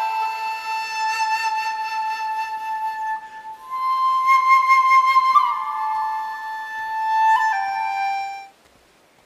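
Chinese bamboo flute (dizi) playing a slow solo melody of long held notes with a wavering vibrato, rising to a higher note about four seconds in and stepping back down. The melody breaks off near the end.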